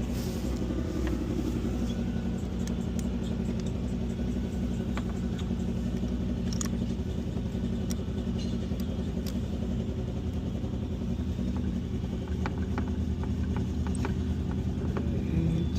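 A steady low engine hum runs throughout, with scattered light metallic clicks and taps of small parts and a hand tool as the brake pads and their retaining bolts go back into a motorcycle brake caliper.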